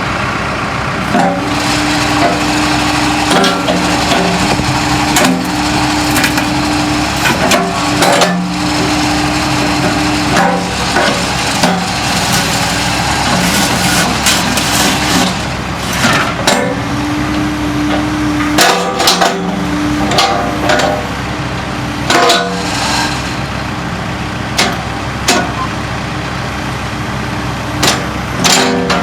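Takeuchi TB260 mini excavator's diesel engine running, with a steady tone that rises in and drops out for stretches of several seconds as the hydraulics are worked. Repeated sharp metallic clanks and knocks run through it.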